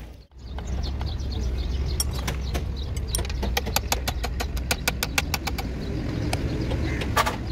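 Quick light hammer taps on a metal gearbox housing, several a second for a few seconds, then two sharper strikes near the end, over a steady low engine rumble.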